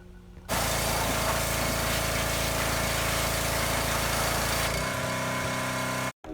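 Pressure washer running steadily: a motor note with a strong, even hiss of spray. It starts about half a second in, its low hum drops away about five seconds in, and it cuts off suddenly near the end.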